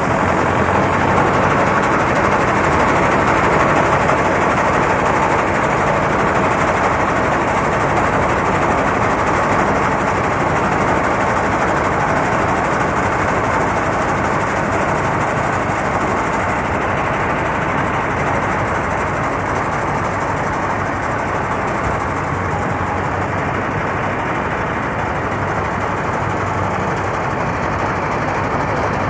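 Mahindra combine harvester running steadily while harvesting rice: a continuous, even mechanical drone with a low engine hum underneath.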